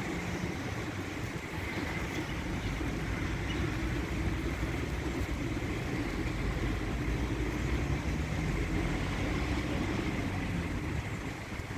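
Rotating side brushes of an automatic tunnel car wash spinning against a car's bodywork, giving a steady scrubbing noise over the low hum of the wash machinery.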